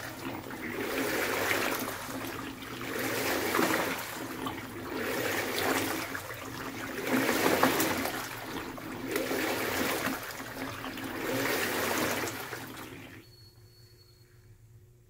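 LG Twin Wash Mini washing machine churning clothes in soapy water during its wash cycle, sloshing in rhythmic surges about every two seconds. The agitation stops abruptly about thirteen seconds in.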